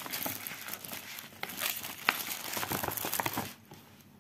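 Clear plastic snap-button pouch being handled, crinkling and crackling with a sharper click about halfway through, then dying down near the end.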